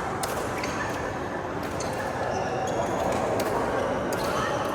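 Badminton play on an indoor court: sharp racket hits on the shuttlecock every second or so and short sneaker squeaks, over steady background chatter.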